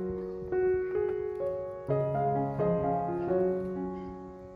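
Background piano music, slow notes and chords.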